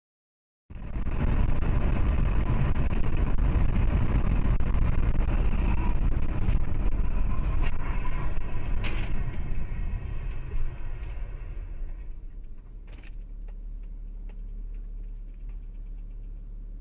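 Dashcam audio from inside a moving car: steady low road and engine rumble that starts after a moment of silence and eases off after about ten seconds as the car slows. A brief knock is heard about nine seconds in and another about thirteen seconds in.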